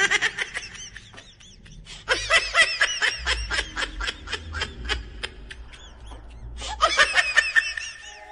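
A woman laughing hard in high-pitched peals, in three bouts: a short one at the start, a long one from about two seconds in, and another near the end.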